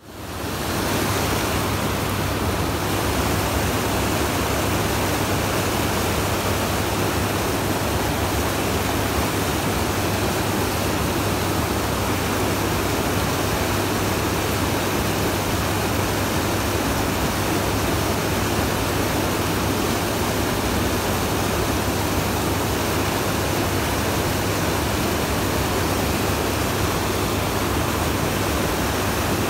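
Fast river water rushing through rapids, a loud, steady, unbroken rush that fades in over about the first second.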